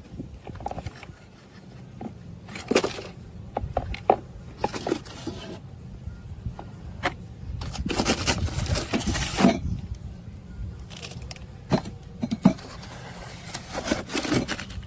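Handling noises: scattered clicks, knocks and scrapes, with a longer rustling scrape about eight seconds in, over a steady low hum.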